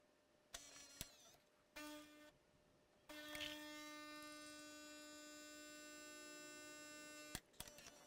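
Faint steady hum of the Gaggia Babila espresso machine's pump as a shot brews: two short hums in the first couple of seconds, then a steady hum from about three seconds in that cuts off with a click near the end.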